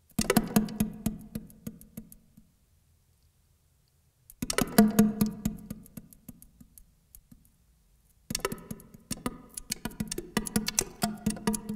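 Saxophone played percussively, heard from inside its bell: a rapid clatter of clicks with a low note ringing through the tube. It comes in three bursts, at the start, about four seconds in and about eight seconds in, and the first two die away.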